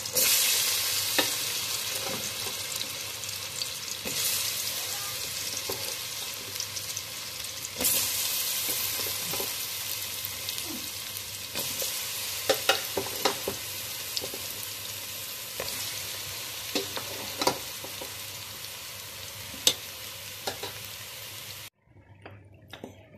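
Sliced nendran plantains sizzling in hot ghee as they are spooned into the pan. The hiss surges as each batch goes in, near the start, about 4 s and about 8 s in, with scattered light clicks, and cuts off suddenly near the end.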